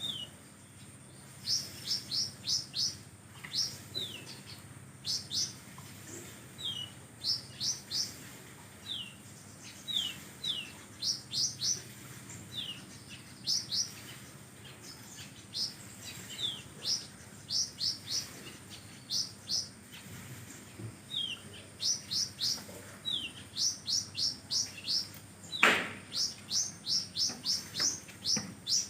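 A konin songbird singing continuously (gacor), repeating a phrase of a short falling whistle followed by a quick run of three to six sharp rising chirps. Its song is filled with kapas tembak notes. A single sharp knock sounds near the end.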